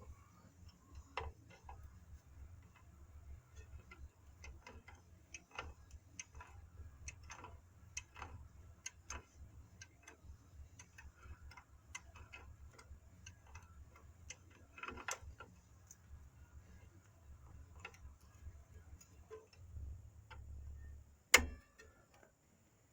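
Irregular small metallic clicks and clinks of hand tools working on a truck's rear drum brake, fitting the wheel cylinder and brake line, over a low steady hum. One much louder sharp knock comes near the end.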